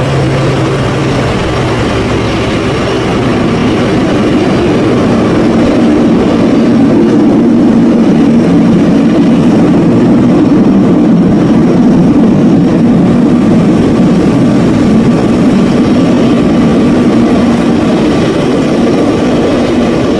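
C-130 Hercules turboprop engines running with a loud, steady drone, swelling over the first several seconds and then holding loud.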